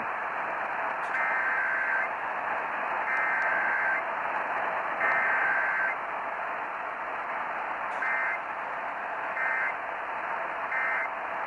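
Emergency Alert System weekly test on the radio: the SAME digital header sent three times as bursts of about a second each, then the shorter end-of-message code three times, each burst a warbling two-tone data sound, over steady radio hiss.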